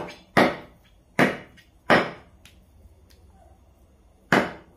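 Meat cleaver chopping raw field-rat meat on a thick round wooden chopping block: four sharp chops, the first three about three-quarters of a second apart, then a pause of about two seconds before the fourth.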